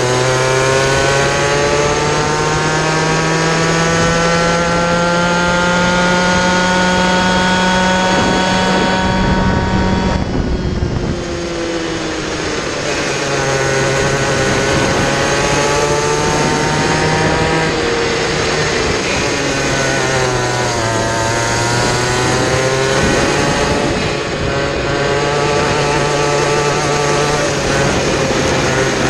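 Kid kart's small two-stroke engine heard onboard at race pace. Its pitch climbs steadily for about ten seconds, drops sharply as the kart lifts off for a corner, then rises and falls again a few more times through the following corners.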